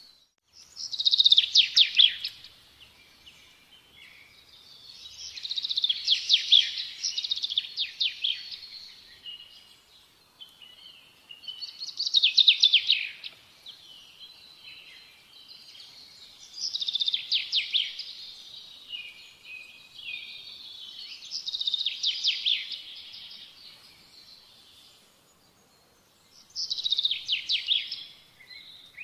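A small songbird singing: six phrases of rapid high trills and chirps, each a second or few long, with short pauses between.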